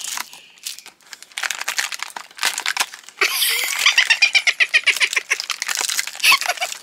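Cardboard doors of a chocolate advent calendar being torn open, with paper tearing and crinkling. About three seconds in, a rapid run of high chirps lasting about three seconds rises over the tearing.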